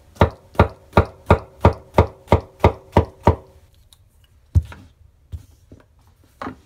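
Japanese wa-gyuto chef's knife by Yoshiaki Fujiwara (Kato) slicing a russet potato on a wooden cutting board. The blade knocks on the board in a quick, even run of about ten cuts, roughly three a second, followed later by three slower, separate knocks.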